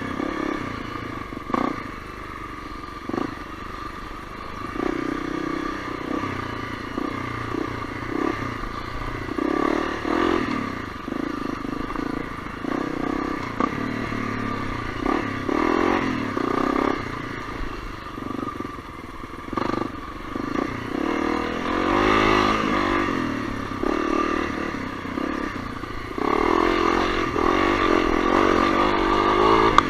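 Honda CRF250L's single-cylinder engine running under varying throttle, its pitch rising and falling again and again, with occasional short knocks and clatter.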